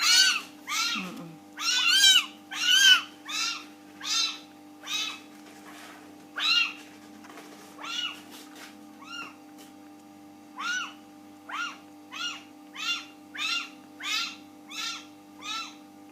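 Kittens meowing: about twenty short, high-pitched, rising-and-falling calls one after another. The loudest come in the first three seconds, with a short lull about nine seconds in, under a steady low hum.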